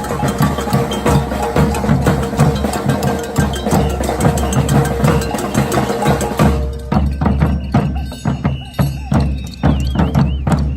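Street band playing loud percussion-driven music with a held note over steady drum hits; about two-thirds of the way in the fuller sound drops away, leaving mostly drum strokes and a few high whistle-like tones.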